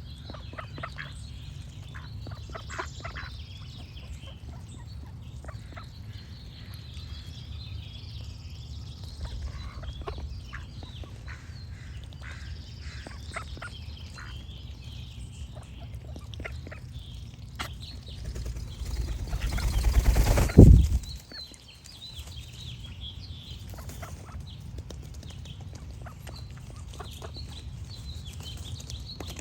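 Ducks quacking now and then, with small birds chirping, over a steady low rumble. About twenty seconds in, a loud rushing noise swells up over a couple of seconds and cuts off suddenly.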